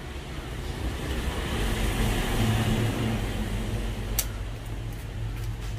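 A road vehicle passing by: engine and tyre noise swelling to a peak a couple of seconds in, then fading. A single sharp click comes about four seconds in.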